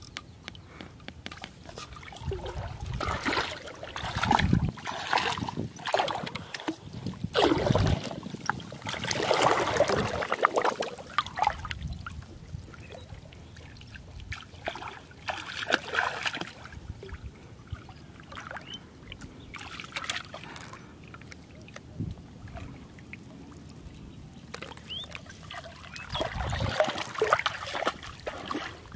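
Shallow water sloshing and splashing in irregular bursts as someone wades through knee-deep water, with the biggest splashes about eight to eleven seconds in and again near the end.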